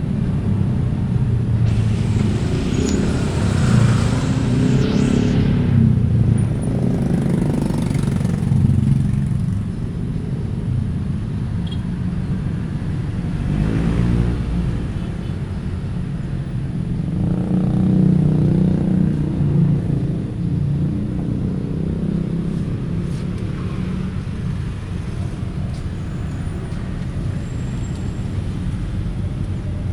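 Road traffic: cars and motorcycles going by, swelling and fading every several seconds over a steady low rumble.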